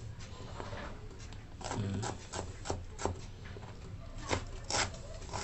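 Kitchen knife chopping on a plastic cutting board: a handful of irregular sharp knocks of the blade striking the board, most of them after the first second and a half.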